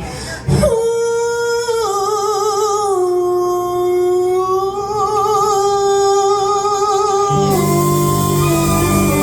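Live blues band performing: a singer holds one long note with vibrato, stepping down in pitch twice, then the full band swells in near the end.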